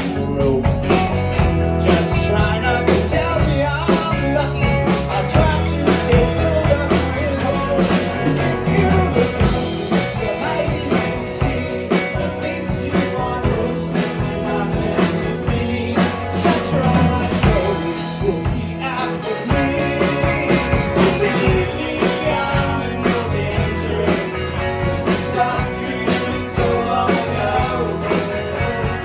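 Live rock band playing a song, with drum kit, guitar and some singing.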